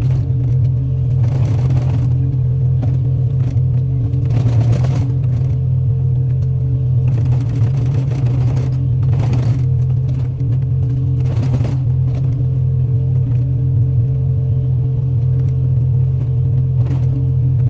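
Excavator's diesel engine running at a steady pitch, with several brief noisy rushes over it every few seconds.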